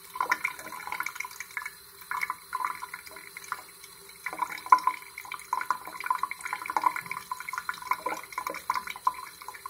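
Thin stream of tap water splashing over a wet parakeet's feathers and the hand holding it, spattering irregularly into the sink, with two brief lulls in the first half.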